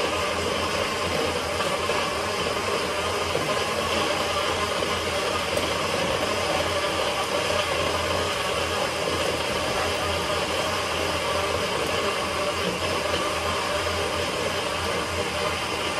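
Over-the-range microwave's vent fan running steadily: an even whooshing noise with a low hum.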